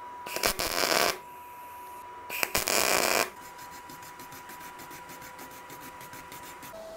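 Two short bursts of MIG tack welding, each a crackle of under a second, about two seconds apart. Then a brass wire brush scrubs the fresh welds with a quieter, rhythmic scratching.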